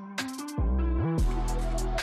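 Electronic background music with a deep bass that slides in pitch and quick, crisp high ticks over held tones.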